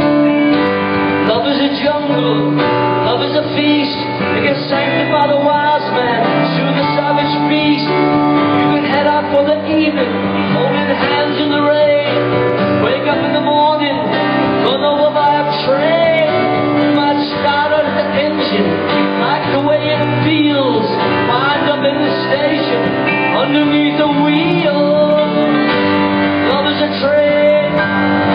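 Live rock band playing an instrumental break, with a lead electric guitar playing bending, wavering notes over bass and drums. Heard loud through a phone's microphone in the crowd.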